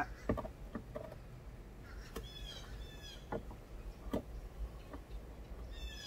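A bird calling in the background, a quick series of chirps about two seconds in and again near the end, over a few faint knocks and clicks of hands working at a plastic sump basin.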